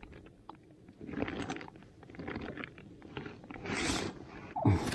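Close handling noises: irregular scrapes, rustles and clicks with short louder bursts as a freshly caught fish, a rudd or roach, is held and handled in the hands.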